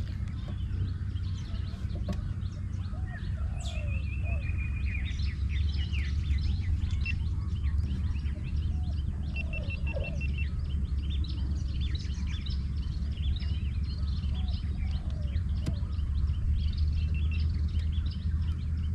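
Many birds chirping and calling, with a few quick even trills, over a steady low rumble.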